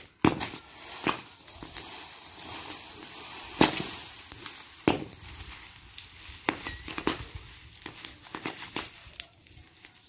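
A burning pile of dry leaves, brush and corn stalks, crackling with irregular sharp pops over a light hiss, the loudest pops about a quarter second in and about three and a half seconds in. Dry sticks rustle and scrape as they are raked into the fire.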